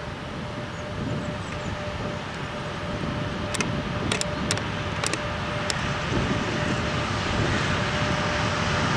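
Two Sr1 electric locomotives hauling a tank-wagon freight train, approaching slowly: a steady rumble with a steady electric hum, growing gradually louder. A handful of sharp clicks come around the middle.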